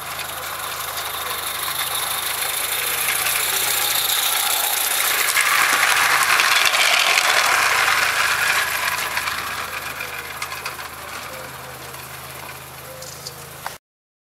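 Small-scale garden-railway train running by, its wheels rattling and clicking on the track, growing louder to a peak about six to seven seconds in and then fading away. The sound cuts off suddenly near the end.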